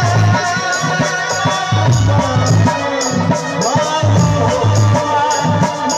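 Live, amplified Baul folk music: a sung melody over a steady beat of deep drum strokes and a rhythmic shaker.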